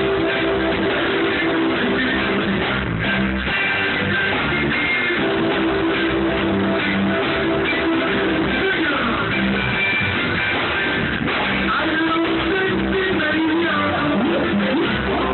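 Live reggae band playing steadily at full volume, recorded on a phone so the sound is dull with no high treble.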